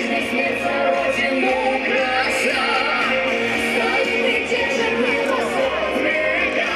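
Loud music with singing played over a stage sound system for a dance performance.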